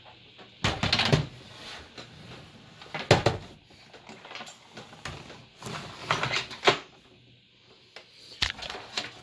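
Knocks, clunks and short rattles of computer hardware being handled: a PC case and its parts being moved about, in several separate bursts.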